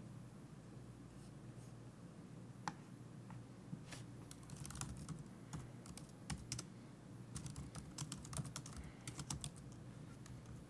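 Faint typing on a computer keyboard: a few separate keystrokes at first, then quicker runs of keys in the second half.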